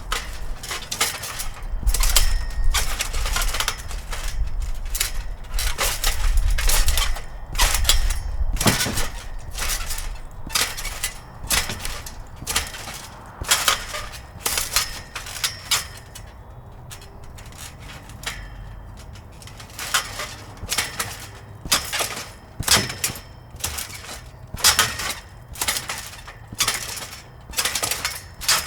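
Metal springs of a 12-foot trampoline creaking and clinking under an adult bouncing on it, a cluster of sharp metallic clicks with each bounce. The bouncing eases off for a few seconds in the middle, then picks up again.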